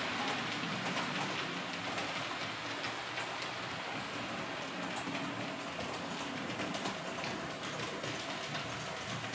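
H0 scale model trains running on the layout's track: a steady, rain-like crackle of metal wheels rolling over the rails, with many fine clicks.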